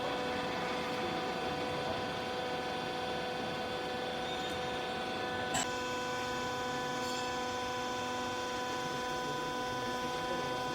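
Steady electric machine hum with a pitched whine, as from a hydraulic baler's motor and pump running. A single sharp click comes about five and a half seconds in.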